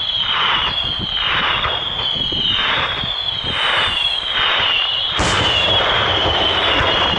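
Fireworks going off: a rapid string of whistles, each falling slightly in pitch and overlapping the next, about two a second, over a steady hiss. One sharp bang about five seconds in.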